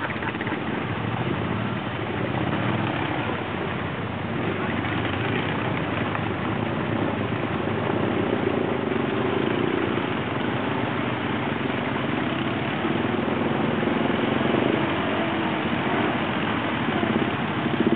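ATV engines idling and crawling through deep water: a steady engine drone that swells a little now and then, over a constant hiss.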